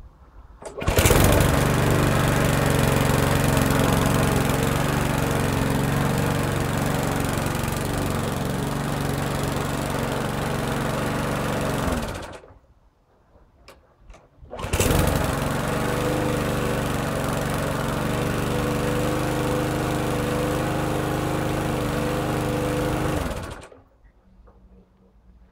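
GardenCastel NG414 lawn mower's petrol engine starts about a second in and runs steadily, cuts out about 12 seconds in, then starts again about two and a half seconds later and runs steadily until it cuts out near the end.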